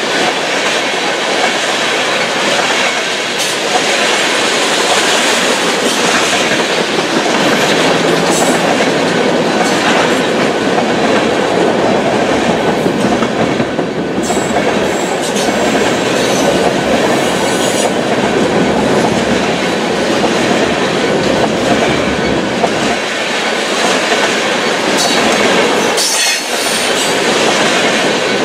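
Freight train tank cars rolling past close by: a steady loud rumble and clatter of steel wheels on the rails, with a few brief high squeals from the wheels now and then.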